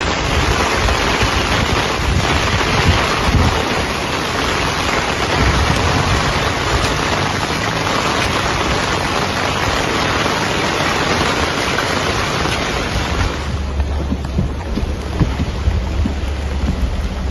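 Loud, steady rush of water, storm rain or flooding, with no pitch or rhythm. About thirteen seconds in the hiss thins out abruptly, leaving a low rumble.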